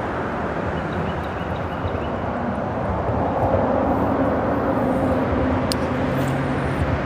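Steady traffic noise from freeway traffic on the bridge overhead, with a vehicle's engine hum growing about three seconds in. A single sharp click near the end.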